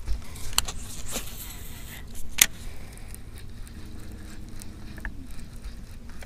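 Handling of a baitcasting rod and reel: a few sharp clicks, the loudest about two and a half seconds in, over a faint low hum.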